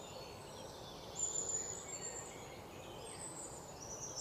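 Quiet outdoor background noise: a steady low hiss with a few faint, high-pitched bird chirps, one about a second in and more near the end.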